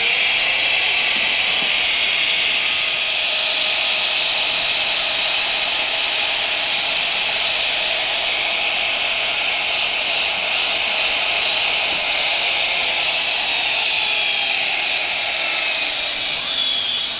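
Precise 45,000 RPM, 1/2 HP CNC router spindle running at high speed: a steady, high-pitched whine over a rushing hiss, easing off a little near the end.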